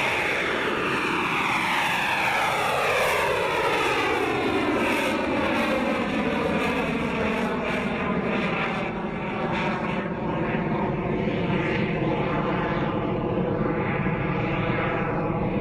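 Rocket engine firing continuously as the vehicle climbs away: a steady loud rushing roar with a hollow, phasing tone that sweeps downward and slowly levels off.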